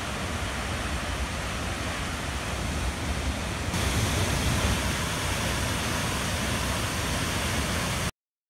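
Waterfall pouring into a pool, a steady rushing noise that turns brighter partway through and then cuts off suddenly near the end.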